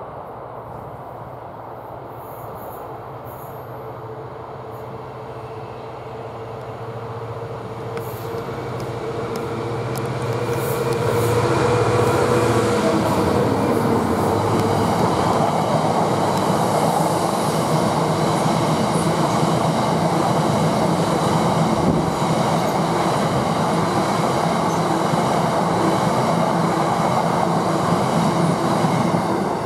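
British Rail Class 66 diesel locomotive, a two-stroke V12, approaching with its engine drone growing louder and passing about twelve seconds in. A long rake of empty stone hopper wagons then rolls past loudly and steadily, wheels clattering over the rails with a faint high wheel squeal.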